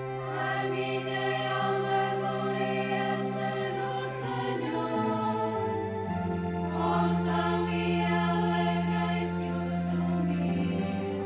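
Church choir of young voices singing a communion hymn over sustained organ chords, the chords changing twice.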